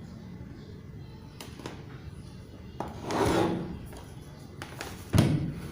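Handling noises: a few light clicks, then a brief rustle about three seconds in, and a sharp thump near the end, like something being set down or closed.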